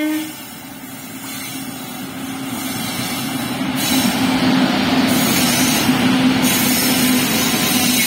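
Indian Railways electric freight locomotives passing close at speed: running noise growing louder over the first few seconds and then staying steady as the locomotives go by, with a steady low hum through it. The last of a horn blast cuts off at the very start.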